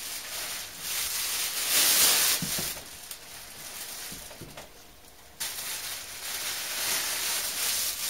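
Plastic packing bag rustling and crinkling as it is pulled out around a 3D printer, in two spells: the first between about one and three seconds in, the second starting suddenly about five and a half seconds in.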